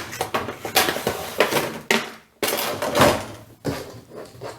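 Action figure packaging being handled and opened: irregular rustling, clattering and knocking of cardboard and plastic, with a brief pause about halfway through.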